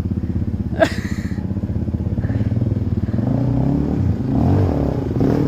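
Off-road vehicle engine running close by, with one sharp knock about a second in. From about halfway through, the engine note rises and falls as it revs.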